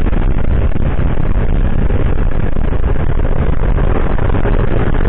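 Steady wind rush and road noise on the rider's microphone, with a Yamaha scooter's engine running at cruising speed.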